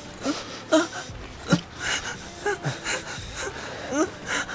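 A man's voice moaning and gasping in a string of short, pitched cries ("ah… mm… ah…"), with breathy sounds between them. These are a character's cries during sex, driven to tears.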